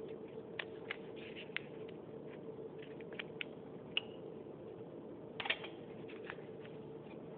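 Light crinkles and ticks of filter paper and gloved fingers as a paper cone is fitted into a glass funnel, with a small glass clink about four seconds in as the funnel settles into the beaker, over a steady background hum.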